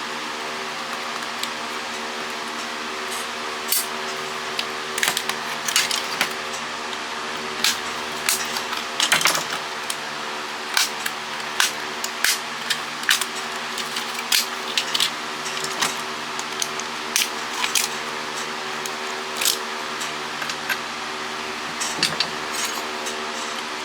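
Irregular clicks and clatter of plastic and small metal parts being handled and pried apart while a cordless phone is dismantled for scrap, over a steady low hum.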